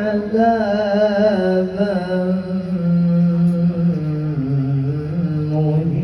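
Man's voice reciting the Quran in melodic tilawah style, drawing out the word "'adhaban" in a long ornamented melodic line that steps down in pitch.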